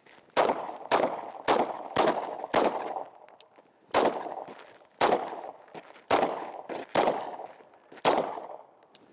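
Ten 9mm shots from a Wilson Combat EDC X9 pistol fired while the shooter walks. A quick string of five comes about half a second apart, then after a short pause five more come roughly a second apart. Each shot trails off in a brief echo.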